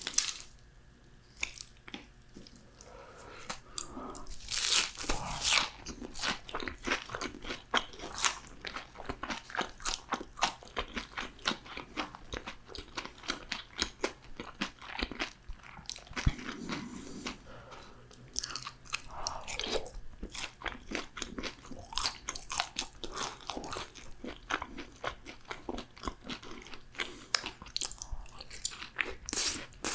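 Close-miked crunching and chewing of crisp fried food: many quick, sharp crunches with a brief quieter pause in the first few seconds.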